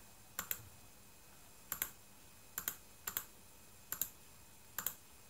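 USB computer mouse button clicked six times at irregular intervals, each click a quick double tick of press and release.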